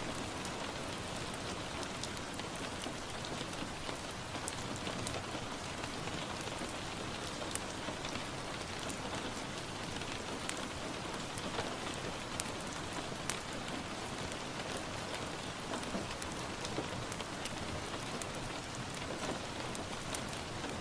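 Steady rain hissing evenly, with scattered sharp pops and ticks from a crackling wood fire.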